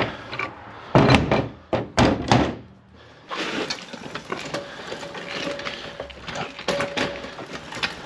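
Steel pipe wrench and adjustable wrench knocking and clanking against a metal pipe fitting, several loud knocks in the first couple of seconds. After a short lull, a steady mechanical noise with scattered rattles and clicks.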